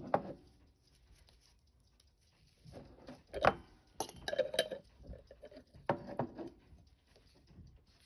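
Light clinks and clatters of watchmaker's tools and small watch parts against glass and metal, a few separate handling noises with quiet gaps between, the loudest about three and a half seconds in.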